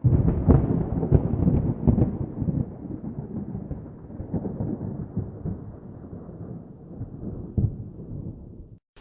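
Thunder: a loud crackling clap that rolls into a long rumble and slowly fades, with one more sharp crack near the end before it cuts off suddenly.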